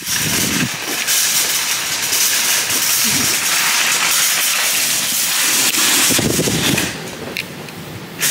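Steady loud hiss of rain, with a few short low rumbles of wind buffeting the microphone.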